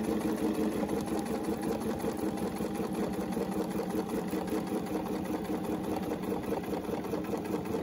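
Bernina 770 domestic sewing machine running steadily, stitching free-motion quilting along an acrylic ruler template.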